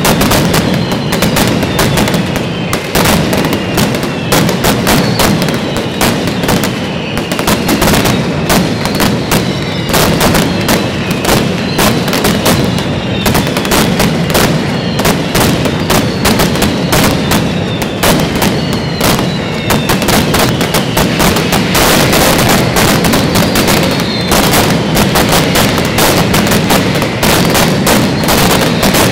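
Mascletà firecrackers going off in a dense, continuous barrage of rapid bangs, with many short falling whistles from whistling firecrackers mixed in.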